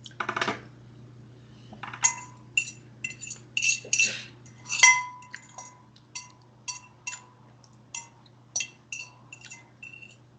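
An eating utensil repeatedly clinking against a dish, about twenty irregular taps, each ringing briefly at the same bright pitches. A low steady hum runs underneath.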